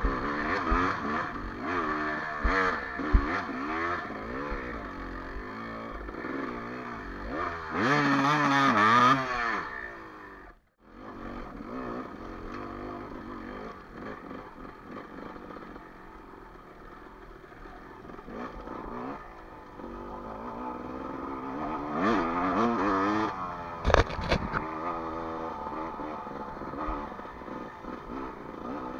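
Enduro dirt bike's engine revving up and falling back over and over as it rides a rough trail, loudest about eight seconds in and again near the end. A few sharp knocks from the bike over the ground, the loudest about five seconds from the end, and the sound cuts out briefly about eleven seconds in.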